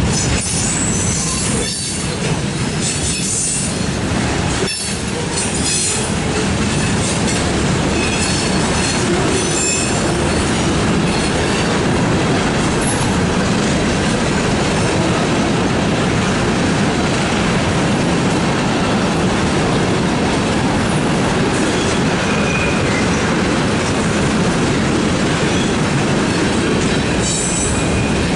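Freight train cars (covered hoppers, tank cars and boxcars) rolling past at trackside: the steady noise of steel wheels on rail, with short high-pitched wheel squeals now and then and a sharp knock about five seconds in.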